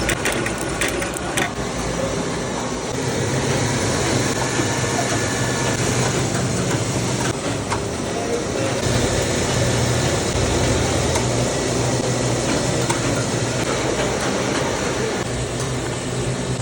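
Factory machinery running steadily, with a low hum that swells for several seconds in the middle and a few clicks near the start.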